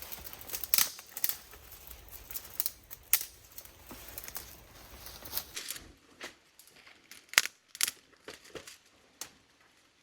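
Wood crackling and snapping in sharp, irregular clicks over a low rumble. About six seconds in the rumble stops and the snaps become sparser, with a few louder ones.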